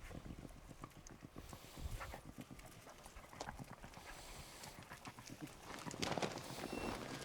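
A person's footsteps walking at a steady pace over the ground, with a louder, brushier stretch about six seconds in.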